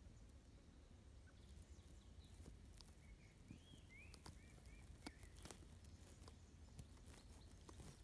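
Faint outdoor ambience: a low wind rumble with scattered small clicks, and a short run of faint bird chirps between about three and five seconds in.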